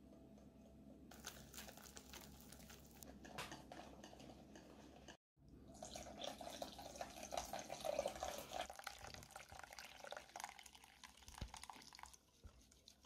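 Wire whisk beating crepe batter in a bowl, with rapid clicking strokes. After a short break, warm water is poured in a thin stream into the batter while the whisk keeps stirring, giving a splashing, gurgling pour.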